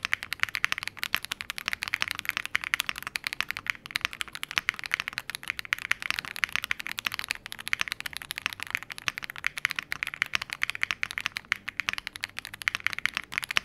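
Typing sound test on a Dark Alien R83 75% aluminium-case mechanical keyboard with its stock switches: a fast, unbroken run of keystrokes with a light clack.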